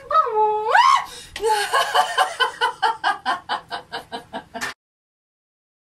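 A woman's voice swoops high in pitch, then breaks into laughter pulsing about five times a second, which cuts off suddenly near the end.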